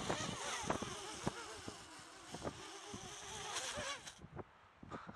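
Eachine Falcon 180 quadcopter's motors and propellers whining, the pitch wavering up and down as it wobbles in gusty wind, with wind thumping on the microphone. About four seconds in, the whine cuts off abruptly.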